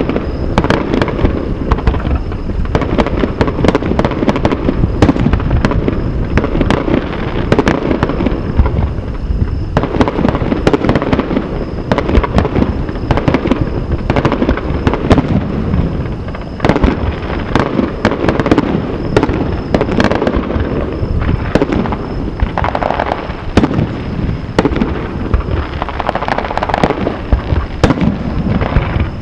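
Fireworks display: aerial shells bursting one after another, dozens of sharp bangs over a continuous low rumble of booms.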